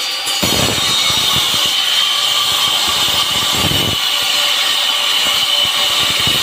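Electric angle grinder cutting a groove into a brick wall for a water pipe: a steady high motor whine over gritty cutting noise, which gets heavier about half a second in as the disc bites into the brick.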